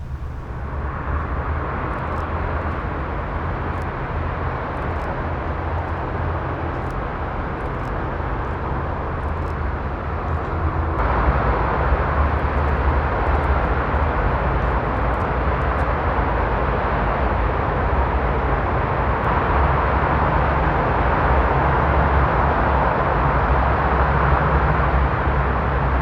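Steady vehicle rumble with a hiss above it, stepping up in loudness about eleven seconds in.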